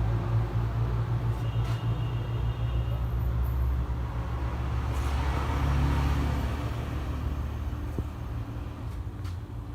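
Refrigerator compressor running with a steady low hum while R600a refrigerant is charged into the system. A deeper rumble swells around the middle and fades toward the end.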